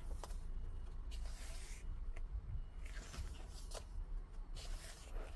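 Pages of a large photobook being turned and handled, with several short, soft paper rustles and slides over a low steady hum.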